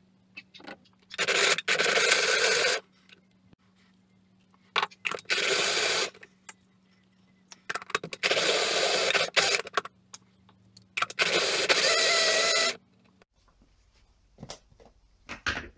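Personal blender run in four short pulses of one to two seconds each, blending a green smoothie of avocado, banana and lamb's lettuce in plant milk. A few light clicks follow near the end.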